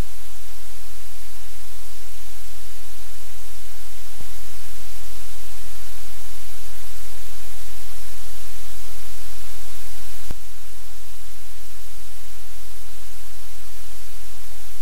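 Steady, loud hiss of static over a low electrical hum, with a faint click about four seconds in and another about ten seconds in, each where the level shifts slightly.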